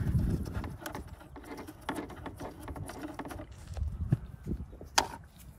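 Wrench clinking and tapping on a 10 mm nut and its bracket as the nut is loosened by hand, with scattered light clicks and one sharper click near the end.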